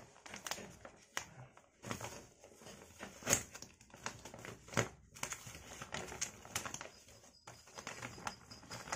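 Sealed packaging being pulled open by hand, crinkling and crackling throughout, with sharper snaps about three and five seconds in.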